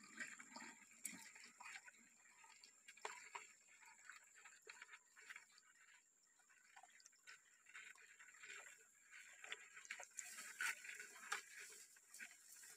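Faint trickle of shallow stream water over rocks, with scattered small clicks and drips, a little busier about three seconds in and again near the end. A thin, steady high-pitched tone sits above it.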